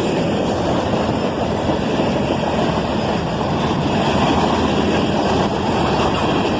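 Freight cars of a manifest train rolling past at speed: a steady, loud rumble and rush of wheels on rail.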